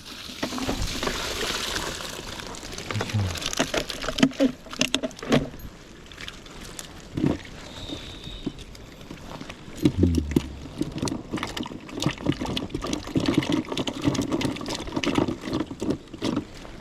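Water pouring and splashing for the first few seconds, followed by a run of short knocks and clatters.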